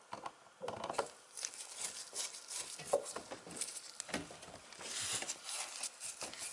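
Light, irregular clicks, taps and scrapes of a gloved hand working at the underside of a dishwasher at floor level, in small bursts with short pauses.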